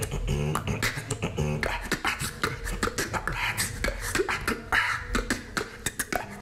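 Beatboxing done with a cheek retractor holding the lips open, so the beat is made without lip sounds: a fast rhythm of clicks and hissing hi-hats, with a low hummed bass line under the first couple of seconds.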